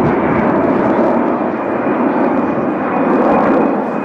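Boeing 747's four turbofan engines running in a low, banking flypast: a steady, loud rush of jet noise with a thin high whine.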